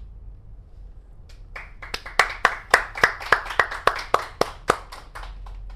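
Hands clapping: a quick run of claps at about three a second, starting about a second and a half in and lasting roughly three and a half seconds.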